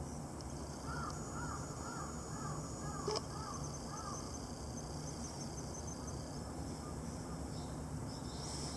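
A bird calling a quick run of about eight short, arching notes in the first few seconds, over a steady outdoor hiss. A single sharp click sounds about three seconds in.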